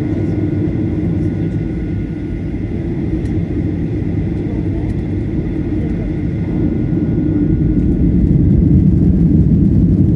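Boeing 737-800's CFM56 engines and airframe rumble heard from inside the cabin during the takeoff roll: a steady low roar with a faint whine, growing louder about seven seconds in.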